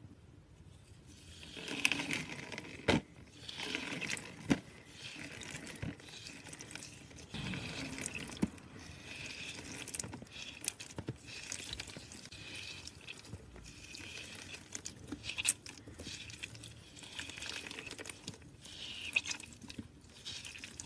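Wet, glitter-coated green floral foam being broken and crushed by hand: irregular crunching and crackling with frequent sharp snaps as the foam crumbles.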